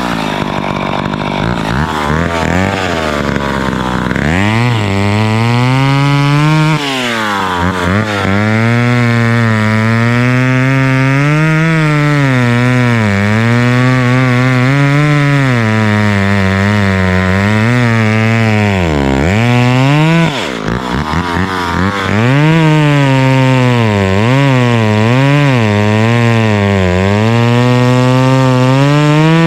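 Chainsaw running at high revs while cutting, its pitch wavering up and down as the chain loads and recovers. The revs drop sharply twice, briefly about a quarter of the way in and for longer about two-thirds through, before the saw climbs back to full speed.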